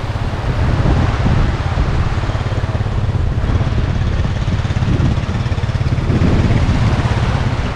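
Wind buffeting the microphone: a steady loud rumble with a hiss over it.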